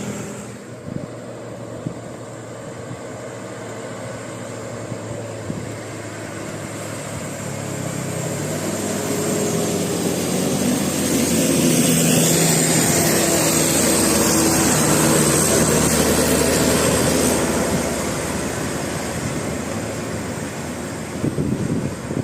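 A heavy bus drives past: its engine and road noise build up, are loudest about halfway through with the engine pitch rising, then fade away.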